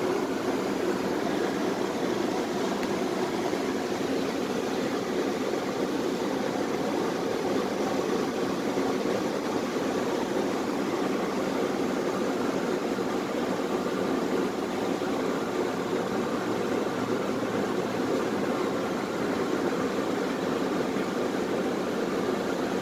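Steady, even noise heard from inside a Tatra T3SU tramcar, strongest in the low-middle range, with no distinct knocks, clicks or rail joints.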